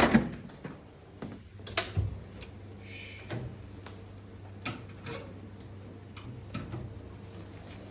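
Scattered light knocks and clicks of food packages and bottles being handled and set down, over a steady low hum.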